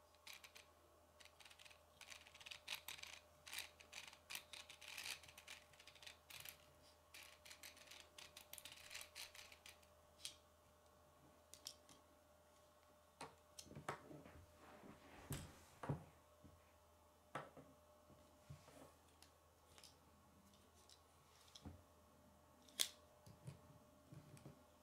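Plastic K'nex parts and gears clicking as the hand-mixer model is handled: a dense run of fast clicking through the first ten seconds, then scattered single clicks and a few soft knocks, with one sharp click near the end.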